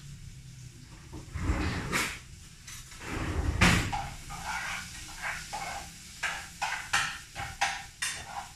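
Spoon stirring onion frying in oil in a small metal pot: two longer scraping sweeps in the first few seconds, then a run of quick knocks and clinks against the pot, several a second.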